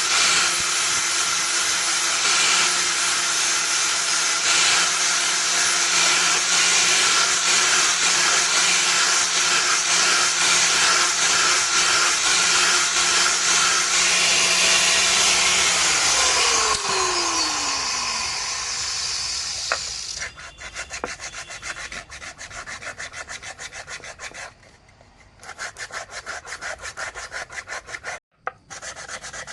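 A powered sander runs steadily on wood with a hum and a rasping hiss, then is switched off about sixteen seconds in and its hum falls in pitch as it spins down. Quick, even rubbing strokes of hand sanding follow.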